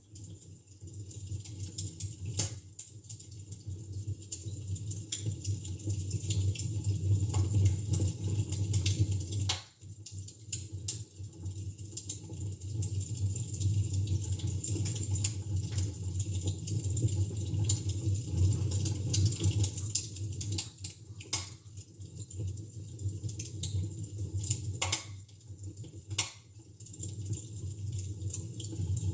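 Fire burning in a fireplace: irregular sharp crackles and pops over a steady low rumble.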